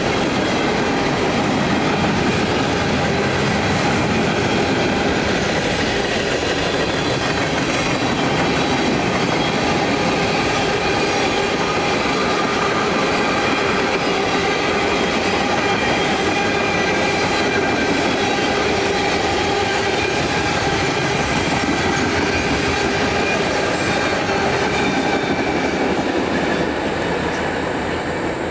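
Freight cars of a CSX train rolling steadily past over a grade crossing: steel wheels rumble on the rails and click over the joints, with a steady high wheel squeal. The sound eases slightly near the end as the last car goes by.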